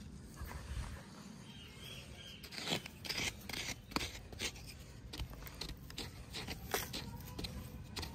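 A wooden stick scraping and jabbing into dry, stony dirt to dig a small hole: a run of short, irregular scratchy strokes that come more often from about two and a half seconds in.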